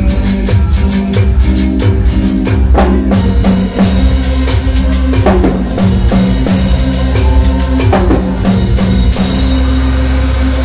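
Live band music with a steady dance beat: keyboard chords over electric bass, timbales and drums, with hand-held percussion played by the front singers.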